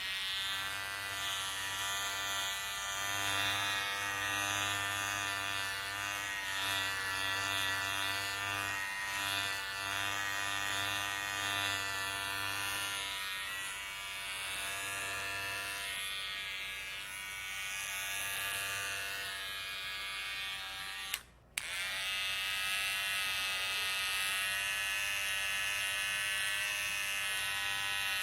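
Electric hair clippers running with a steady buzz while cutting hair, the tone wavering as the blades work. The buzz cuts out for about half a second around three-quarters of the way through, then carries on.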